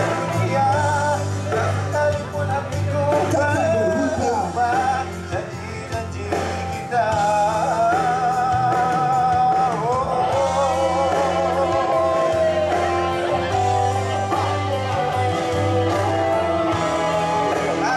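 Live band music: a drawn-out vocal melody with wavering vibrato over electric guitar and a steady bass line.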